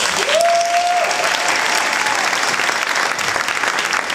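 Audience applause, a dense steady clapping from a hall full of people. In the first two seconds one long rising call, a single held tone, rides over the clapping.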